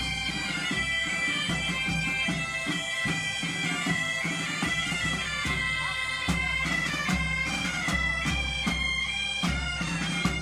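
Asturian bagpipe (gaita) playing a tune, with a drum beating along underneath.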